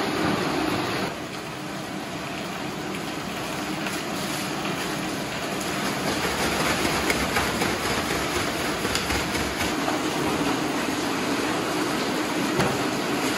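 Steady rush of running water, with a few light knocks.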